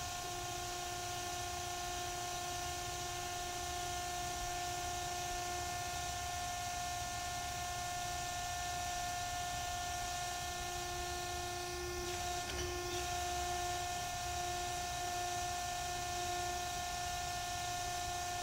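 PHI tube bender running under power: a steady machine hum with several steady whining tones over a low rumble, the sound shifting slightly about two-thirds of the way through as the bend arm moves.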